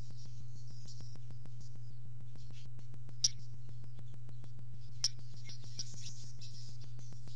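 Barn swallow twittering at its nest in a high, scratchy chatter, with two sharp clicks about three and five seconds in. Under it runs a steady low hum and a fast, faint regular ticking.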